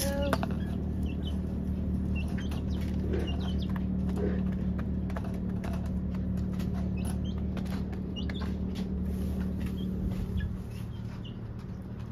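Chickens clucking softly, with short high calls scattered throughout, over a steady low hum that drops off about ten seconds in.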